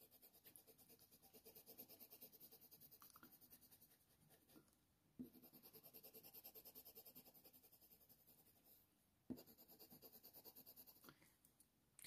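Very faint scratching of a white colour pencil stroked firmly over hot-press watercolour paper, blending and smoothing the layers beneath. The strokes come in short spells, with two soft ticks about five and nine seconds in.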